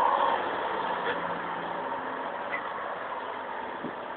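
John Deere 6510 tractor's diesel engine running as the tractor works with a buckrake, loudest at first and fading steadily as it moves away.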